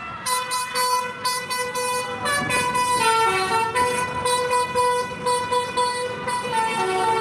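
Bus 'telolet' basuri horn playing a tune: rapid repeated toots of a multi-tone horn, starting about a quarter second in, with the melody stepping down in pitch and back up several times.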